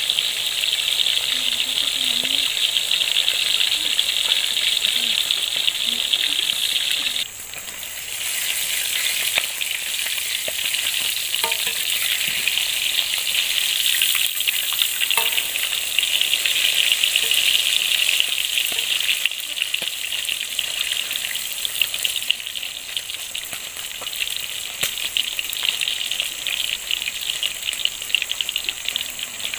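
Food frying in hot oil: a steady sizzle with fine crackling. It dips briefly about seven seconds in, then carries on.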